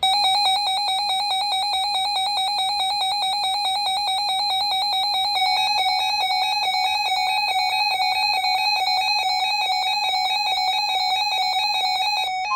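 Weather radio alert alarms beeping rapidly and continuously, the alarm that a NOAA Weather Radio sets off when it receives a severe thunderstorm warning. A second, alternating beep pattern joins about five seconds in.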